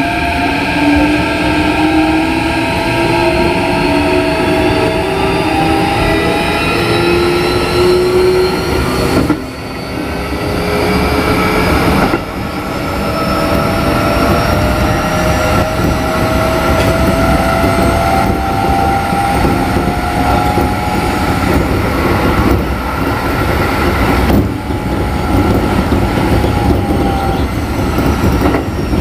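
Keikyu 1500 series electric train running under power with its Mitsubishi IGBT VVVF inverter. The inverter and traction motor whine climbs in pitch as the train accelerates, over rumbling wheel and rail noise. About nine seconds in the whine cuts off suddenly. It returns about three seconds later and climbs again, with another brief dip near the end.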